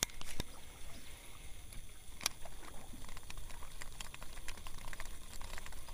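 Faint water lapping and a low steady rumble, with a few sharp clicks from a Daiwa Pixy baitcasting reel as a lure is cast and wound back in.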